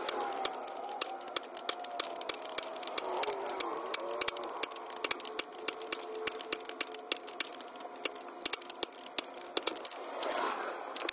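Ratchet wrench clicking in quick, uneven strokes as a new PCV valve is tightened into the engine's valve cover.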